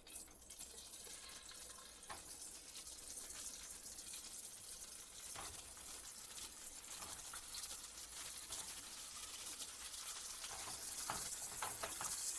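Eggs frying in hot oil in a pan: a steady sizzling hiss that grows gradually louder, with a few light clicks.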